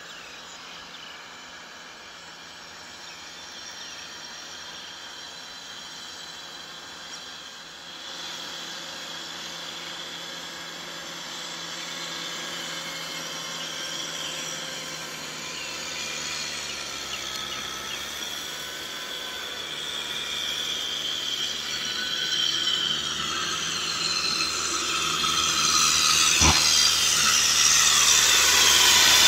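Kubota M6040SU tractor's diesel engine running steadily as it pulls a rotary tiller through wet mud, with a high whine above the engine note, growing steadily louder as it comes closer. Near the end a rising hiss of churning mud and tiller joins in.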